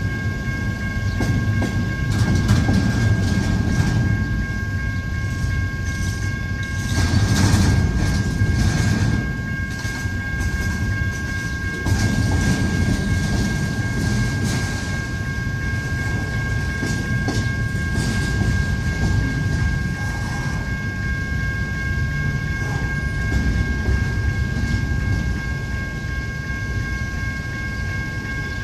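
Intermodal freight train's cars rolling past in a steady low rumble, with wheels clicking over rail joints.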